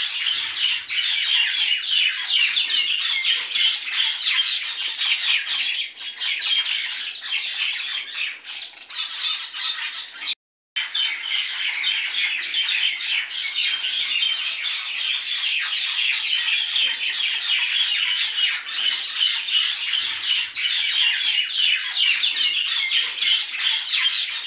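Many birds calling at once, a dense, unbroken chatter of quick chirps, cut by a split-second silence about ten seconds in.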